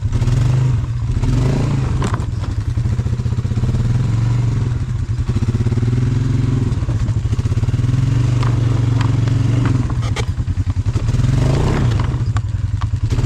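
Polaris Sportsman 570 ATV's single-cylinder engine running under load at crawling speed on a rocky climb, the throttle rising and falling, with a few short knocks.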